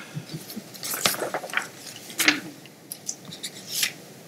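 Sheets of paper notes rustling and being shuffled by hand, a few short scrapes and soft taps spread over about four seconds.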